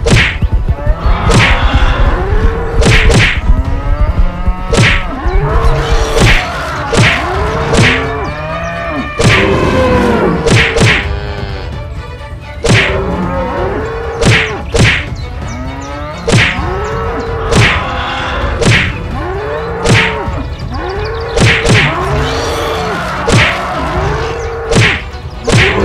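Cartoon fight sound effects: bulls bellowing and mooing over and over, each call rising and falling, mixed with many sharp hits and thuds over a steady low rumble.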